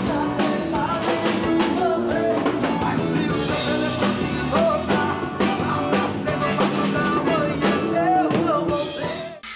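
Live rock band: a male singer over electric guitar, keyboard and drum kit. The music cuts off suddenly near the end.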